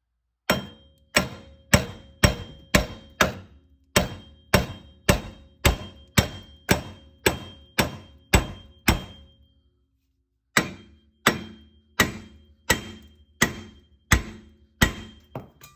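Hammer blows on a stuck wheel bearing hub to drive it out, about two strikes a second, each with a short metallic ring. There is a pause of over a second past the middle before the hammering resumes.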